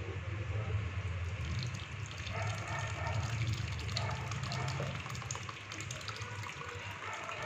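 Curdled milk, chhena curds in whey, pouring from a steel bowl into a cotton cloth over a strainer: a steady splashing of liquid, over a steady low hum.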